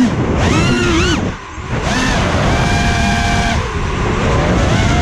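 FPV quadcopter's brushless motors and propellers whining, the pitch rising and falling in quick arcs as the throttle is punched and eased, then holding steady for about a second midway.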